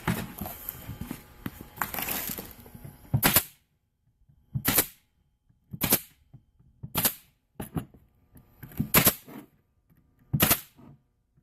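Staple gun firing staples into a cabinet back panel: a series of about six sharp single shots, roughly one every second to second and a half, after a few seconds of handling and knocking.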